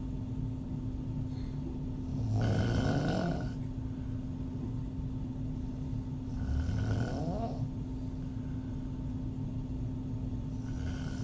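A woman snoring with her mouth open: two full snores, each about a second long, about four seconds apart, and a third beginning near the end. A steady low hum runs underneath.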